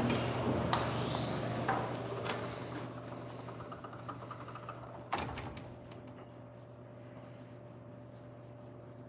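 Glass entrance door being pushed open by its metal pull: rubbing, handling and several light clicks and knocks. One sharp knock comes about five seconds in, then only a steady low hum.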